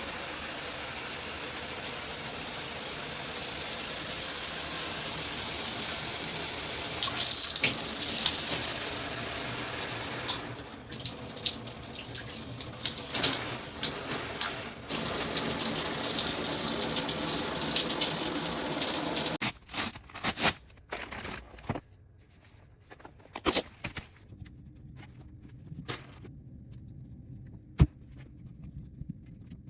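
Water spraying steadily from a handheld shower head, uneven for a few seconds in the middle, then shut off abruptly about two-thirds of the way through. After that come scattered sharp clicks and knocks.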